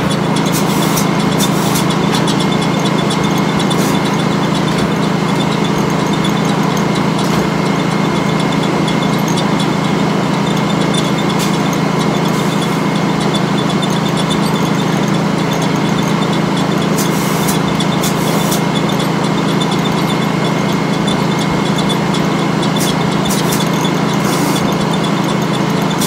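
Circular sawmill running with its large blade spinning free, not cutting, and its flat drive belt turning: a loud, steady mechanical drone with a few short hisses over it.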